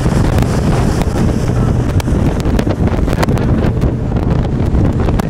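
Wind buffeting the microphone on a speedboat under way, over the steady drone of the boat's engine, with scattered short knocks.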